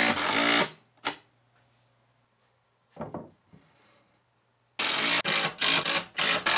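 Makita cordless driver running screws into plywood: one screw finishes driving under a second in, then after a short knock about three seconds in, another is driven in several short bursts of the trigger near the end.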